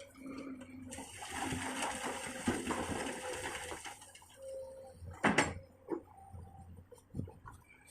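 Komatsu PC200 excavator at work: a rushing, spilling noise for about three seconds, then one sharp loud clank about five seconds in, with a few lighter knocks after it.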